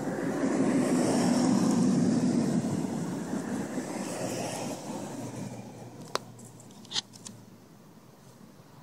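A vehicle passing, its noise swelling and then fading away over several seconds, followed by two short sharp clicks near the end.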